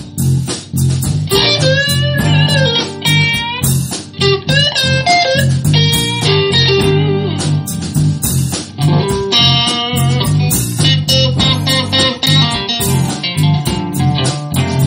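Electric blues band playing an instrumental break: a lead electric guitar solos with bent notes over a repeating bass line and drums.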